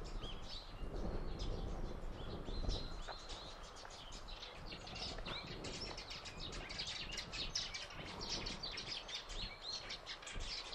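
Small birds chirping, many short high chirps that come thicker from about halfway through, over low steady background noise.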